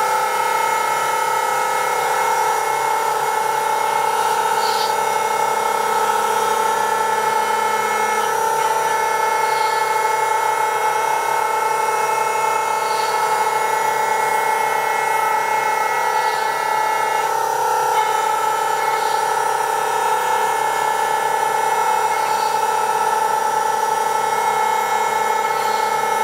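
Electric power tool motor running steadily at constant speed, a continuous even whine with faint light ticks every second or two.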